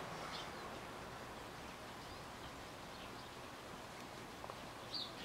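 Quiet background with a few faint, short bird chirps scattered through it.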